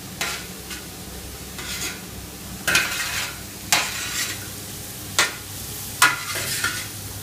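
Squid, onion, pepper and beans sizzling in a wide paella pan while a spoon stirs them, scraping across the pan's bottom in several sharp strokes over a steady frying hiss.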